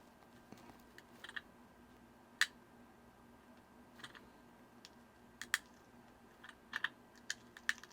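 Light, sharp clicks and taps of hand tools against a Casio DW-290 watch case while the glued crystal is being worked out. They come one at a time at first, with a louder single click a couple of seconds in, then gather into a quicker cluster in the last few seconds.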